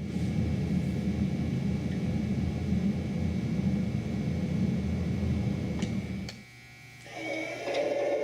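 MTH Proto-Sound 3.0 model locomotive running, with a steady low rumble from the sound system's diesel engine and the model's motor. About six seconds in the rumble drops away, and a second later a higher, several-toned running sound takes over.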